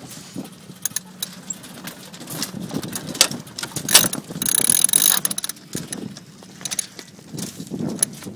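A sailboat's sheet winch clicking as its pawls ratchet while a sheet is hauled in. Scattered clicks are followed, about halfway through, by a second-long run of fast clicking.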